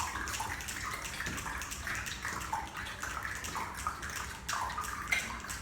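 Rainmaker shakers shaken by a group of young children, a continuous rain-like hiss and patter of many small rattles.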